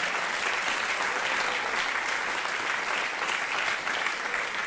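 Audience applauding: many people clapping in a dense, steady patter that eases off slightly near the end.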